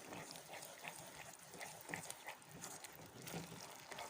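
Manchurian sauce thickened with cornflour bubbling and popping in a pan while it is stirred. It makes faint, irregular pops and clicks.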